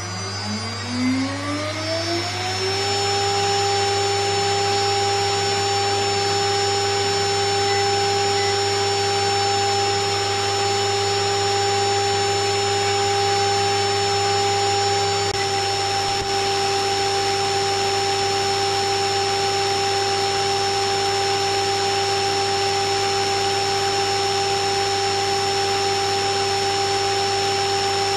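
A 2.2 kW water-cooled high-frequency CNC spindle, driven by a VFD, spins up over about three seconds with a rising whine. It then runs steadily at 24,000 rpm with no cutting load, its whine holding one pitch over a steady rushing noise and a low hum.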